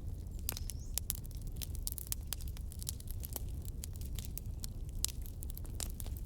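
Fire burning in a fireplace: irregular sharp crackles and pops over a low steady rumble.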